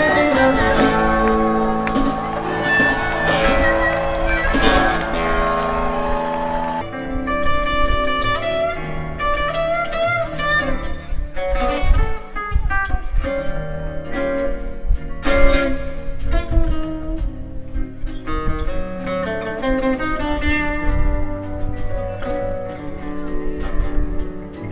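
Live country band playing an instrumental passage. About seven seconds in, the full band drops away, leaving a lone guitar picking single notes.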